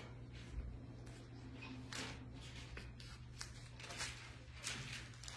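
Soft, scattered rustles of Bible pages being turned as people look up a passage, over a low steady hum.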